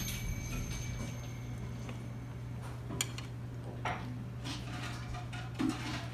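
Restaurant room tone: a steady low hum with a few light clinks of tableware, mostly around the middle.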